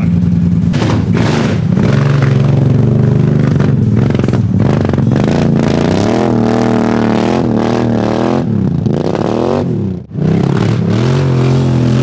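The Power Wheels camper's 750cc engine running and being revved as it drives, its pitch rising and falling again and again, with a brief break about ten seconds in. It sounds like a big block mud truck, and its owners reckon the engine is due for a rebuild.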